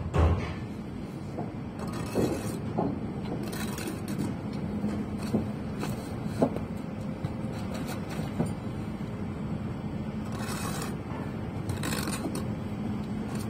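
Building-site background: a steady low hum with a few light knocks and several short scrapes, as bricklayers handle bricks and mortar.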